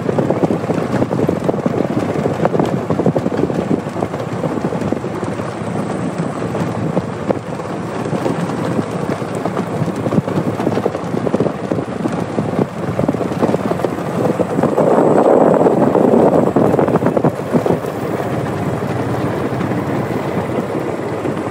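Golf cart driving over a rough hay field: a steady, loud running noise thick with fine rattling, swelling louder for a couple of seconds about two-thirds of the way through.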